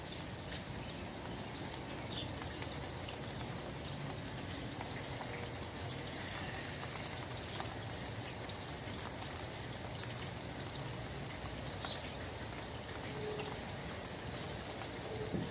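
Steady rain pattering on an open umbrella's fabric canopy: an even, dense hiss of drops with scattered individual drop ticks.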